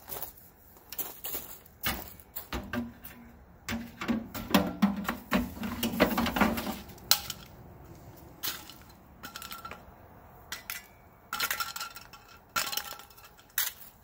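Scattered sharp metallic clinks and crackles from a hot, burnt-out microwave oven shell steaming after being doused with water. The clinks come thickest about four to seven seconds in.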